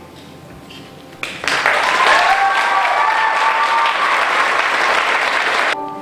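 Audience applause with a few high cheers, breaking out about a second in and cutting off suddenly near the end.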